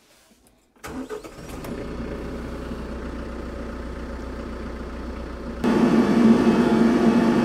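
TYM T574 tractor's diesel engine starting about a second in and settling into a steady idle. A little past halfway the engine sound jumps suddenly louder as the tractor drives.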